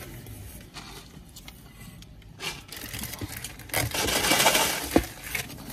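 Rustling and crinkling of a snack bag or paper being handled, loudest about four seconds in, with a sharp click just after.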